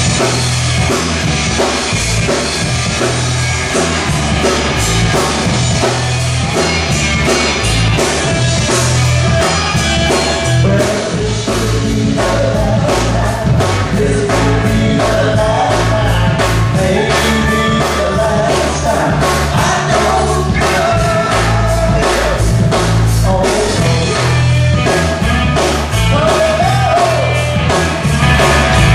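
Live rock band playing a song, with drums, a strong bass line and singing.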